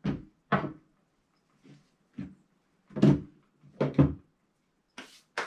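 Milwaukee 18V cordless power tools being picked up and set down on a table: a series of short clunks and knocks, the loudest two about three and four seconds in.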